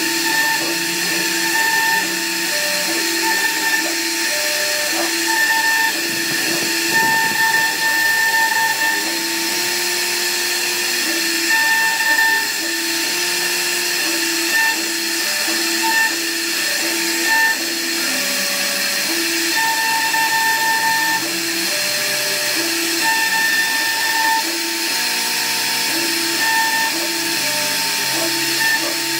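CNC wood router carving: a steady cutting noise with a high hiss, over which motor whines keep starting, stopping and stepping in pitch every second or so as the machine moves.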